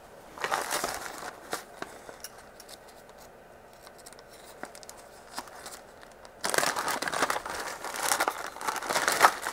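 A clear plastic kit bag crinkling as it is handled and pulled open, with the paper sheets inside rustling. It comes in a short spell near the start, then scattered small rustles, then a longer, louder spell of crinkling through the last three seconds.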